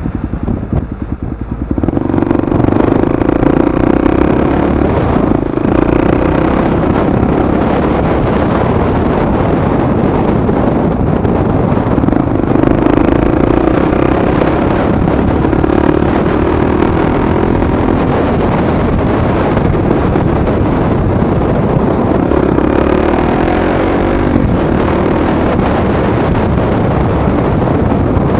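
Honda Tornado 250's single-cylinder four-stroke engine, fitted with an aftermarket exhaust, heard from on board while riding: it runs low for the first two seconds, then pulls up in revs and eases off several times as the bike accelerates through traffic.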